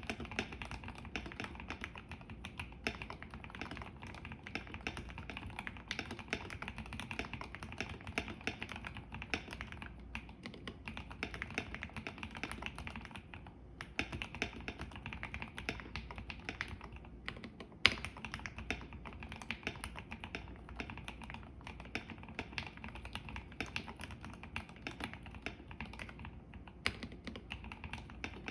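Typing on a KBD75 V3.1 mechanical keyboard with an aluminium plate, Gateron CJ linear switches and a foam-dampened spacebar: a fast, steady stream of key clacks. There are short lulls about ten and fourteen seconds in, and one sharper, louder clack just before eighteen seconds in.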